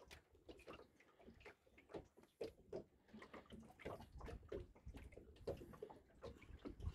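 Near silence with faint, irregular small clicks and trickling water sounds.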